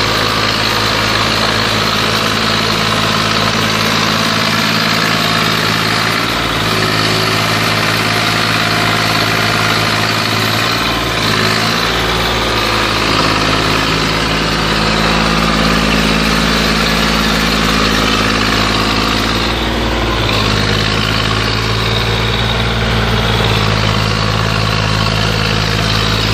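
Zetor 5245 tractor's four-cylinder diesel engine running under load as it pulls a heavily loaded trailer up a steep muddy track. The engine note holds steady, then shifts in speed a few times, most clearly about eleven and twenty seconds in.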